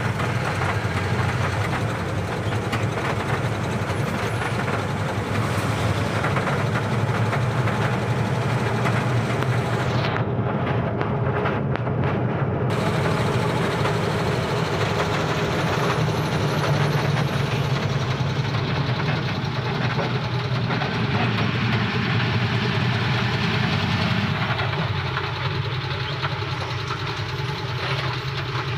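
Heavy vehicle driving, heard from inside the cab: steady engine and road noise.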